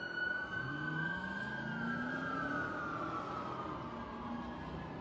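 Fire engine siren held at a high pitch and then slowly winding down, with the truck's engine revving up underneath.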